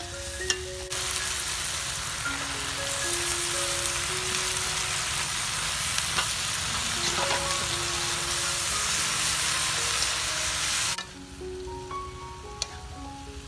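Leafy greens sizzling loudly in a hot wok over a wood fire as they are stir-fried; the sizzle starts abruptly about a second in and drops away suddenly near the end. A light melody plays underneath throughout.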